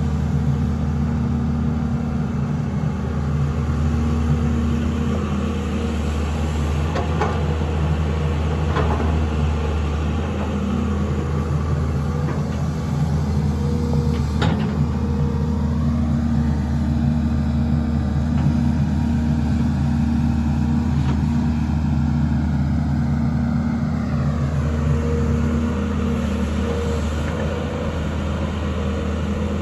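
Sany 215 excavator's diesel engine running steadily under working load, with a few sharp knocks in the first half and a higher whine that slides down in pitch twice in the second half.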